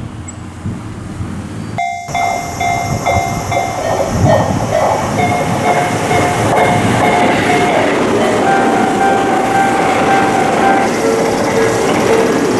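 Japanese railroad crossing warning alarm ringing in repeated tones over the rumble and wheel clatter of a passing train. The sound starts abruptly about two seconds in, and the alarm tone shifts pitch a few times after that.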